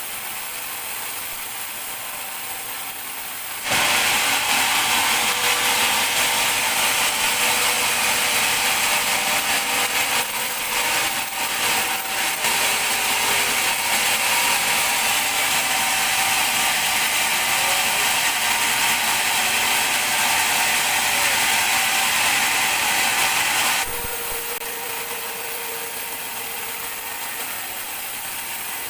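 Large sawmill band saw running, then cutting through a teak log: a loud, steady sawing noise starts abruptly a few seconds in, lasts about twenty seconds, and drops back to the quieter sound of the running blade near the end.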